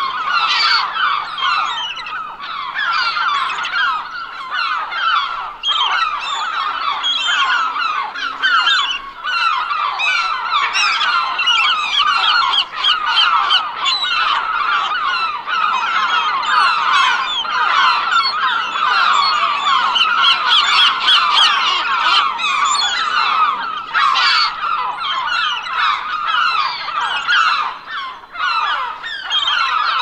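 A flock of gulls calling, many birds at once, their short cries overlapping with no break.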